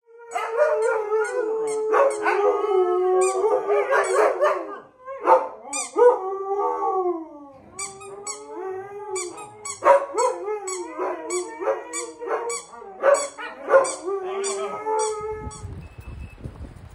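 Several huskies howling together in a long, wavering group chorus that stops about fifteen seconds in. Near the end a low rumble of wind on the microphone takes over.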